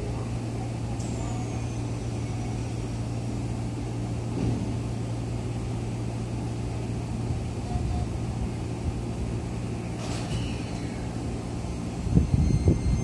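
Keisei 3100-series electric train standing at the platform with a steady low hum. A brief high falling whistle comes about a second in, a click about ten seconds in, and several low thumps near the end.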